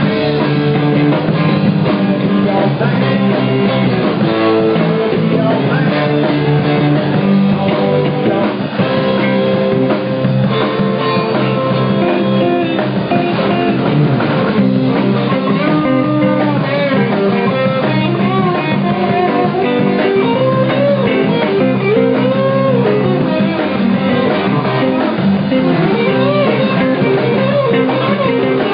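Live rock band of electric guitars, bass guitar and drum kit playing an instrumental passage with no vocals. From about halfway through, a lead guitar line bends up and down in pitch over the band.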